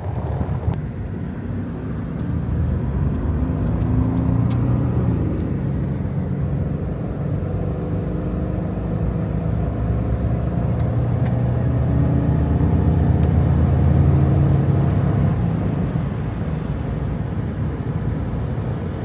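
Jeep engine driving off, its note rising and falling as it gains speed, loudest about three-quarters of the way through.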